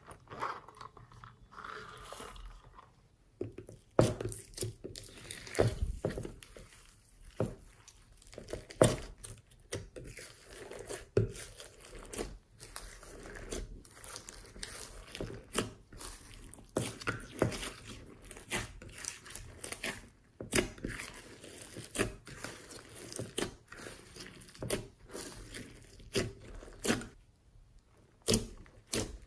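Hands kneading and pressing glossy slime mixed with beads and glitter, making irregular wet clicks, squelches and crackling pops as air pockets burst.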